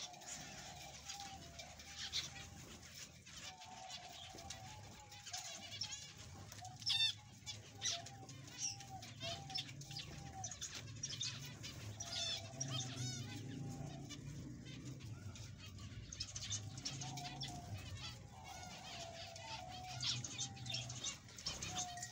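Zebra finches calling, many short nasal call notes overlapping in a busy chatter, with the flutter of wings as birds land.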